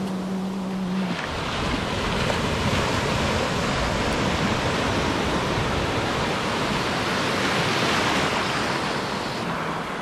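Sea surf breaking and washing up a sandy beach: a continuous rush that swells through the middle and eases off near the end.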